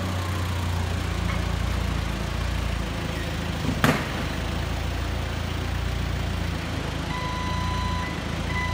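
Forklift running with a steady low hum as its big bag clamp lifts a filled bulk bag off a wooden pallet, with a single sharp knock about four seconds in.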